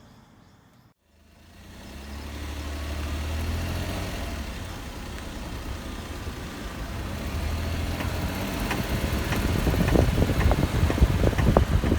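A Daihatsu Tanto kei car running, its steady low engine and road hum building up after a short cut. Irregular knocks and rattles join in during the last few seconds.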